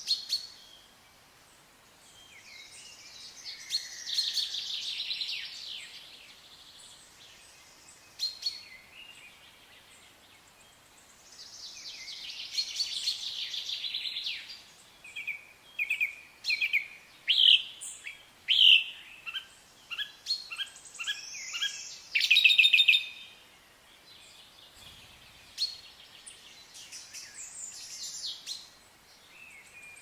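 Wild birds calling: two bursts of rapid chattering trills, a few seconds in and again near the middle, then a quick run of short, sharp, loud chirps and a few softer calls near the end.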